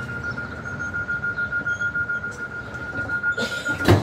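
A steady, high-pitched electronic tone over a low rumble, cut off by a loud clunk near the end.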